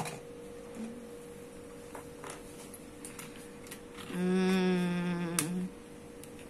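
A child hums one steady note for about a second and a half, starting about four seconds in. Faint clicks of plastic Lego pieces being handled sound around it.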